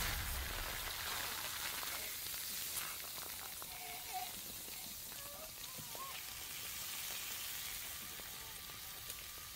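Signal flare burning after being fired, with a steady sizzling hiss that slowly fades.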